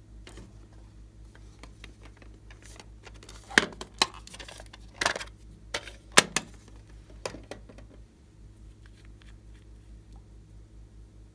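Slime-making materials being handled by hand: a run of sharp clicks and taps in the middle, over a faint steady low hum.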